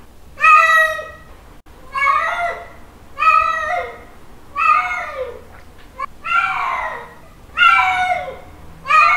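Male cat's mating call: a loud, drawn-out meow repeated about seven times, roughly once every one and a half seconds. Each call rises and then falls in pitch.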